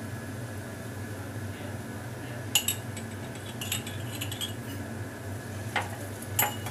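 A steel spoon and a glass clinking several times against each other and a flat pan while beaten egg is poured and spread over a paratha for an egg roll, starting about two and a half seconds in, over a steady low hum.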